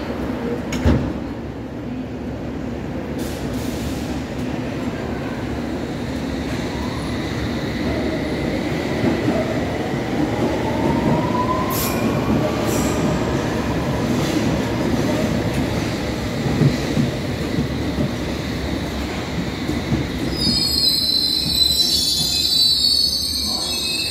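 London Underground S Stock train departing: a sharp thud about a second in as the doors close, then a steady rumble with the traction motors' whine rising in pitch as it gathers speed. Over the last few seconds the wheels squeal high on the curved track.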